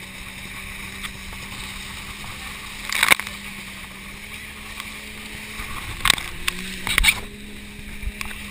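Inflatable banana boat skimming over choppy sea under tow: rushing water and wind on the camera over a steady low hum, with loud splashes of spray about three seconds in and twice more near the end.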